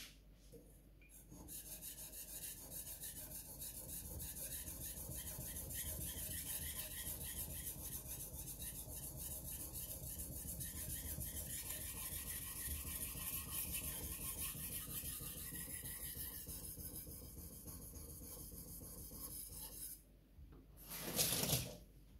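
Takamura Chromax knife blade scraping back and forth on a wet whetstone in quick, steady strokes. The scraping stops near the end, followed by a short louder noise.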